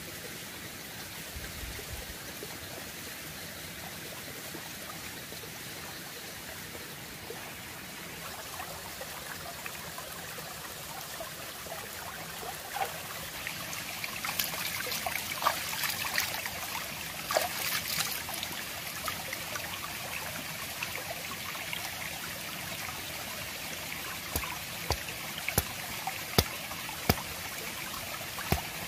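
Shallow stream trickling steadily over stones. From about halfway in come splashes and a few sharp knocks, louder near the end, as a melon is handled in the water at the edge.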